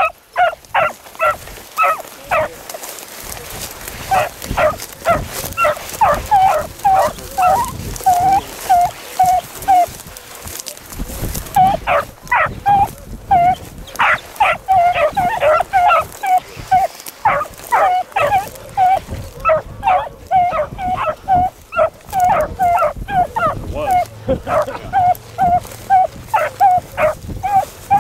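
Beagles baying on a rabbit's trail: a long run of short, sharp barks, two or three a second, with a break of about a second and a half about ten seconds in.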